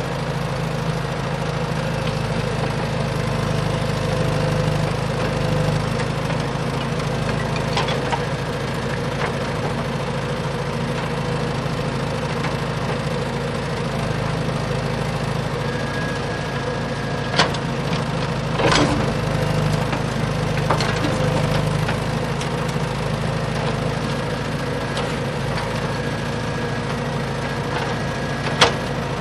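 A motor running steadily, with a few sharp clicks or knocks about two-thirds of the way through and again near the end.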